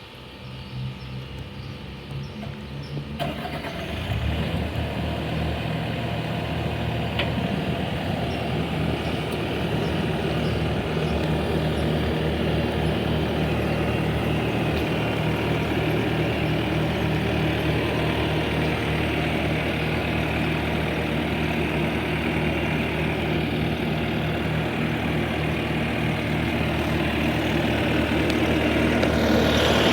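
Bobcat skid steer's diesel engine being cranked and catching about three to four seconds in, then idling steadily. The revs climb near the end.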